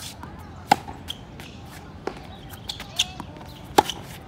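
Tennis balls struck by a racket and bouncing on a hard court during groundstroke practice: a handful of sharp pops, the loudest about a second in and near the end.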